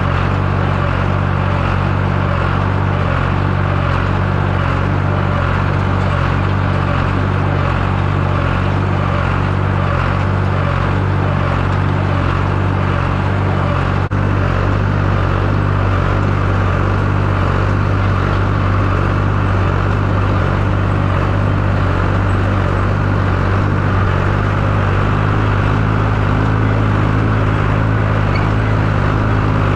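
A vehicle engine running steadily at a constant speed, with an abrupt shift in its tone about halfway through.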